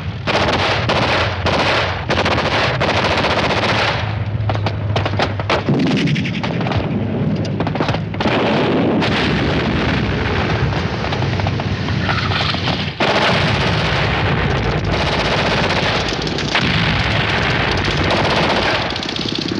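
Battle sound: machine guns firing in rapid bursts amid heavy gunfire and explosions, one dense and continuous din. Separate bursts of shots come in the first few seconds, and a fresh loud blast comes about two-thirds of the way through.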